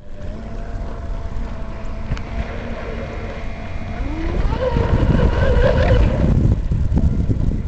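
Brushless electric RC hydroplane running on the water, its high motor whine climbing in pitch and growing louder about four seconds in, over heavy wind noise on the microphone.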